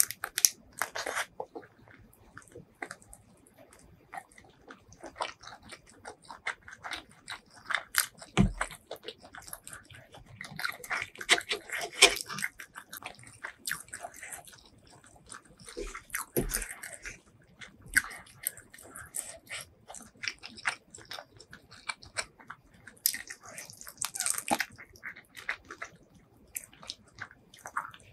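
Close-miked wet chewing and biting of enoki mushrooms and cuttlefish coated in spicy sauce: sticky mouth smacks and crisp clicks that come in irregular bunches.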